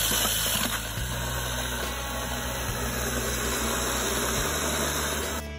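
Cordless drill spinning a paddle mixer in a bucket of wet mortar: a steady motor whir with the churning of the mix, stopping shortly before the end.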